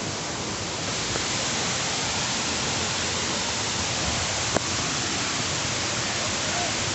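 Krangsuri waterfall's falling water: a steady rushing noise, with one brief click about four and a half seconds in.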